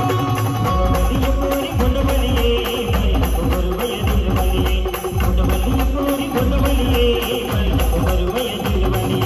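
Loud band music from a truck-mounted band's speaker system: a keyboard melody over heavy, repeating bass beats and dense percussion.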